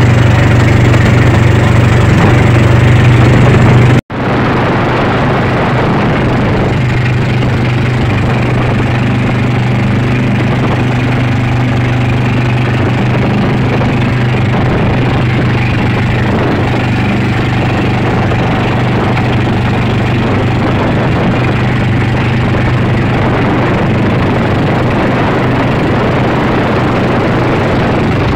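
Small fibreglass boat's outboard motor running steadily at cruising speed, with the rush of water past the hull. The sound cuts out for an instant about four seconds in, then carries on a little quieter.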